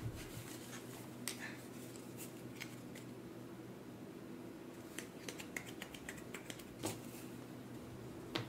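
Playing cards being handled and sorted in the hands, giving scattered faint light clicks and taps over a steady low room hum.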